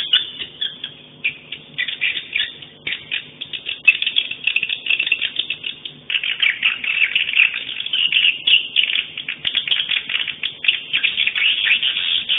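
Swiftlet calls: a dense, rapid stream of high chirps and clicking twitters. The stream thins briefly about two seconds in and again about six seconds in, then picks up.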